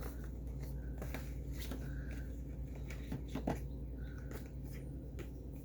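Light clicks and rustles of lipstick tubes and their packaging being handled and sorted, over a steady low hum.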